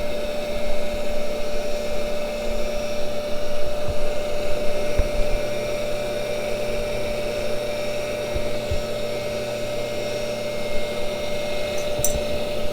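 Cincinnati No. 2 tool and cutter grinder running with its diamond cup wheel spinning: a steady motor hum with a constant whine, and a few faint knocks.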